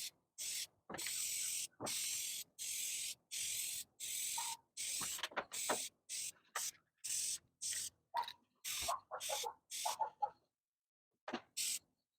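Aerosol can of white automotive paint spraying in a string of short hissing bursts, one pass after another, for a base coat over primer; the bursts stop about ten seconds in.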